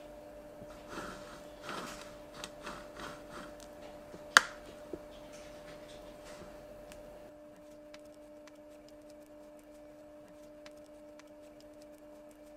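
Cake-assembly handling sounds: soft scraping and rubbing of a spatula spreading cream and sponge layers being set down, with one sharp clack about four and a half seconds in, then only faint ticks. A steady low electrical hum runs underneath.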